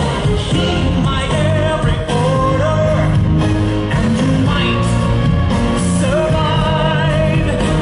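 Recorded song with a singer, played loud over a PA system.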